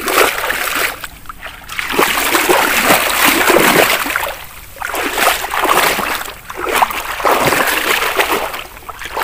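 Shallow swamp water sloshing and splashing as someone wades through grass and reeds, in repeated swells about every second or two.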